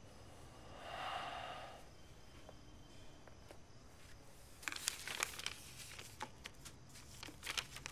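Quiet handling of paper and small objects: a run of crinkling, rustling and sharp little clicks through the second half, after a soft breathy sound about a second in.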